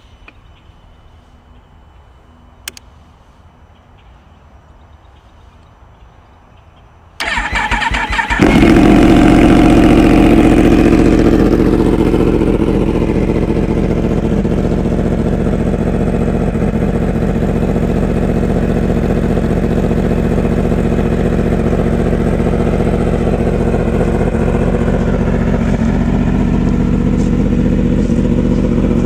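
Yamaha R1 inline-four engine cold-started: after a few quiet seconds with a faint click, the starter cranks for about a second and the engine catches and runs at a fast idle, easing back slightly a few seconds later and then holding steady.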